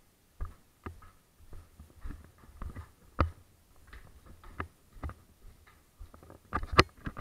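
Footsteps climbing indoor stairs and walking along a corridor: irregular soft knocks about twice a second, getting louder near the end.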